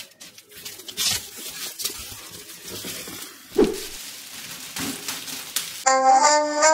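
Scattered light knocks and crinkly rustling, with one sharp thump about three and a half seconds in. Background music with violin-like notes comes in near the end.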